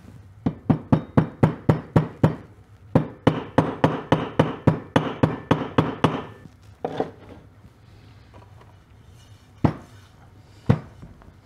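A hammer tapping new seals into a dirt bike's wheel hub, driving them in flush. It comes as two quick runs of blows, about four a second, then a few single blows near the end.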